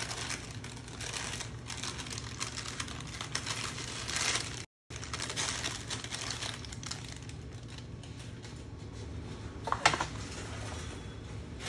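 Parchment paper crinkling and dried baking beans rattling and clicking as the paper-and-bean lining is lifted out of a blind-baked tart shell. There is a denser burst of crackling around four seconds in, and a sharper single clatter near the end.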